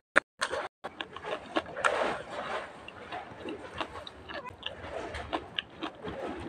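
Close-up eating sounds: a person chewing with wet mouth clicks and smacks, irregular and with no steady rhythm. The audio cuts out briefly twice near the start.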